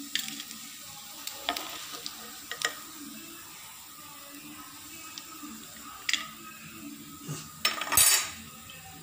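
Perforated steel skimmer clinking and scraping against a nonstick frying pan as fried poha vadas are lifted out of hot oil, over a faint steady sizzle of the oil. There are a few sharp clinks, then a louder, longer scrape near the end.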